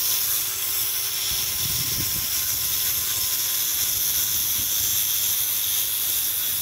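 Angle grinder with a disc running against a stucco wall: a steady, loud high hiss of the spinning disc grinding the render.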